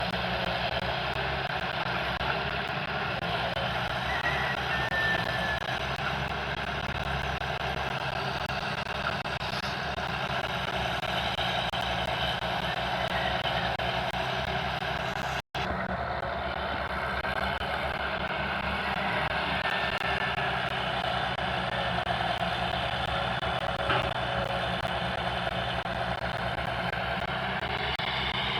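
Caterpillar excavator running steadily while working. There is a continuous engine and hydraulic sound, with a brief dropout about halfway through.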